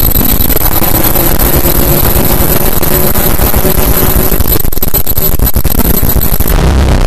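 Loud, harshly distorted noise music: a dense, unbroken wall of noise. Near the end its top hiss drops away and the low end grows heavier.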